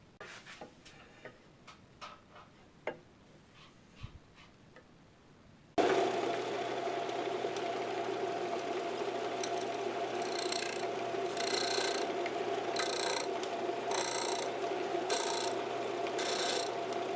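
A few light clicks and taps, then about six seconds in an electric power tool starts abruptly and runs steadily. In the second half a rasping scrape of the tool against the wood repeats about one and a half times a second.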